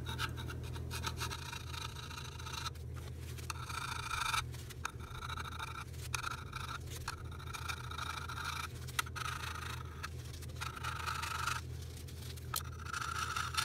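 Metal putty knife scraping hardened wax dent filler off an engineered wood floor, in a run of short strokes about one a second, levelling the repair flush with the boards.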